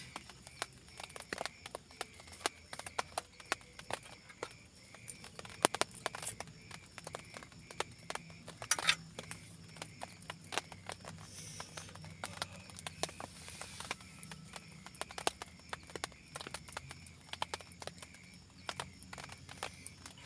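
Rain drips tapping irregularly on a tent and tarp, a scatter of sharp ticks with a few louder ones, over a faint high chirp that repeats about twice a second.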